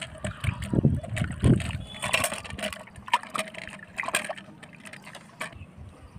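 Water sloshing and splashing in a steel bucket as hands rub and rinse black carrots, in irregular splashes and small clicks.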